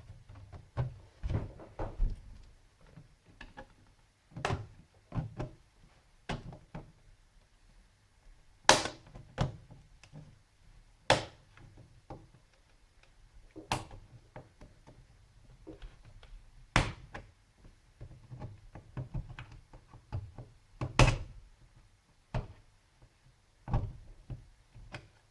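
Plastic snap latches of a Samsung NP305V laptop's case clicking loose as a blunt tool is worked around the seam, with irregular sharp clicks and knocks of plastic spaced a second or two apart.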